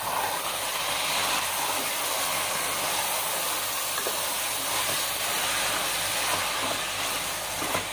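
Minced meat (qeema) with onions and spices sizzling steadily as it fries in oil in a pan, stirred with a wooden spatula.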